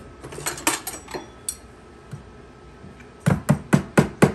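A utensil being jabbed hard against the lid of a metal can to force it open: a few scattered clicks, then about six sharp metallic taps in quick succession near the end.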